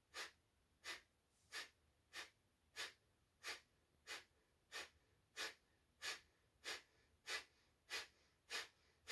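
A woman doing Kapalabhati (breath of fire): about fifteen short, sharp, forceful exhales through the nose, evenly paced at roughly three every two seconds. The passive inhales between them are silent.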